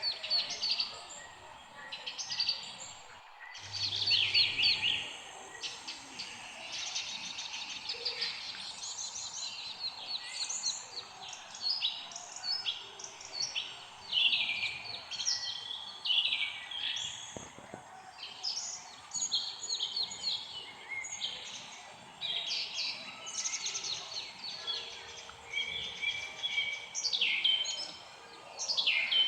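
Several songbirds chirping and singing, short overlapping calls and trills following one another without pause over a faint steady hiss. The sound drops out briefly about three and a half seconds in.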